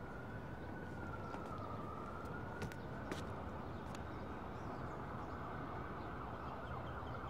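City background noise: a steady low traffic rumble with a far-off siren wailing, its pitch slowly dipping and rising again, and a few faint taps about halfway through.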